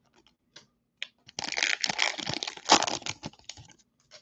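Plastic wrapper of a Bowman baseball card pack crinkling and rustling as the pack is opened and the cards are slid out, a few faint clicks at first and then a dense run of crinkling from about a second and a half in until just past three seconds.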